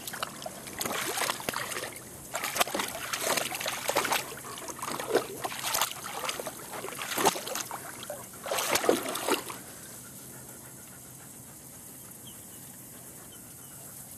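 Water splashing and sloshing in a plastic wading pool as a German Shepherd moves about in it, in irregular bursts that stop about nine and a half seconds in.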